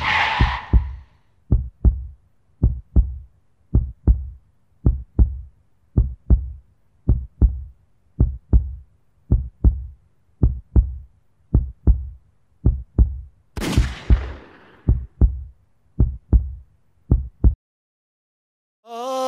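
Heartbeat sound effect: a deep double thump, lub-dub, repeating about once a second. A brief rush of noise opens it, and a second, bigger rush of noise swells and fades about two-thirds of the way through. The beats stop about a second and a half before the end.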